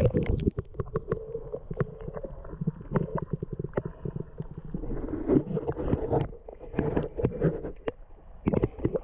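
Creek water heard through a camera held underwater: a dull, muffled rumble with many small knocks and clicks throughout.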